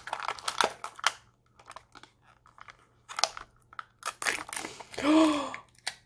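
Small plastic wrapper bags crinkling and crackling, with the plastic of a Mini Brands capsule ball clicking, as tiny items are unwrapped in short irregular spells. About five seconds in, a woman lets out a short excited exclamation that rises then falls in pitch.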